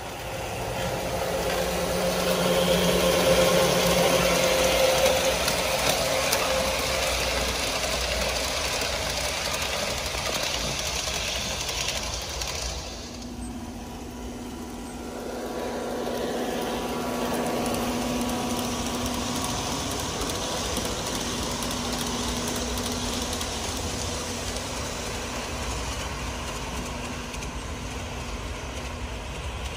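G scale model train running on a garden track, a steady mechanical running sound. It builds at the start, drops away about halfway through, then comes back and holds steady, as a train passes, moves off and returns.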